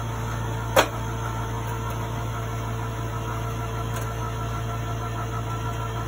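Ladder hoist's winch motor running steadily, hauling the platform with a man standing on it up the ladder. There is a single sharp click about a second in.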